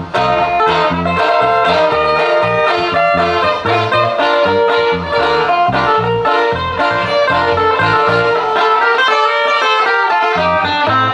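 Live band music led by a picked melody on an amplified cutaway acoustic-electric guitar, over a bass line. The bass drops out for a moment near the end.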